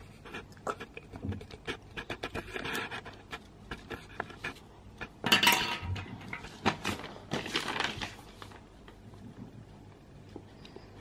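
A pencil writing on a worksheet laid on a glass table: irregular light scratches and taps. A child's breathy huffs come about halfway through and again a couple of seconds later; these are the loudest sounds.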